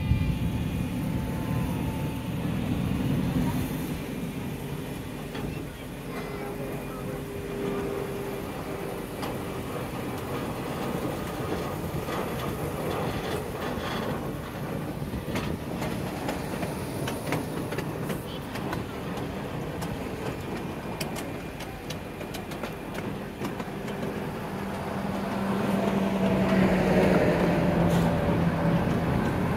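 Miniature ride-on railroad train running along its track: a steady rumble of wheels on rail with scattered clicks, getting louder near the end.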